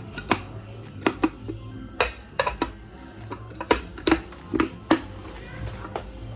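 Kitchen containers and utensils being handled: a scattered series of sharp clicks and clatters, about a dozen, over soft background music.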